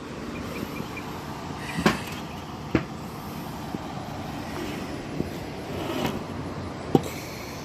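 Steady outdoor background rumble, with a few sharp clicks and knocks, the loudest about two seconds in and near the end.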